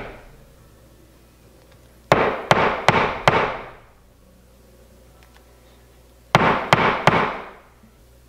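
Sharp taps in two bursts: four quick ones about two seconds in and three more about six seconds in, each ringing briefly in the room.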